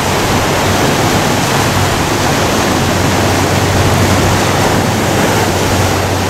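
Ocean surf washing in and around beach rocks: a loud, steady rush of water with no let-up.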